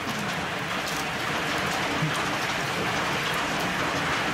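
Hail and rain falling steadily in a storm: a dense, even hiss with faint scattered ticks of individual stones.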